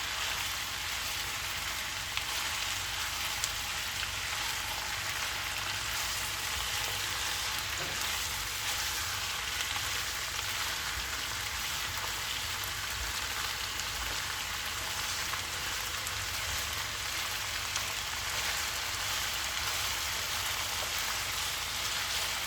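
Chicken pieces frying in oil with ginger-garlic paste in a pan, a steady continuous sizzle.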